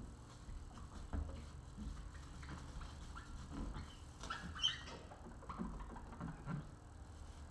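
A cloth wiping window glass with rubbing alcohol: irregular short rubbing strokes and small squeaks as the glass is scrubbed clean.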